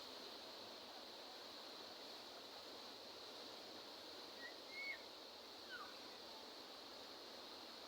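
Faint, steady wash of sea waves on the shore, with a couple of short bird chirps about halfway through.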